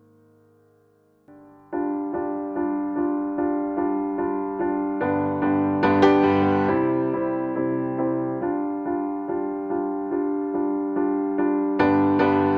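Background keyboard music: quiet at first, then from about a second and a half in a steady run of repeated notes, about three a second, with lower notes joining about five seconds in.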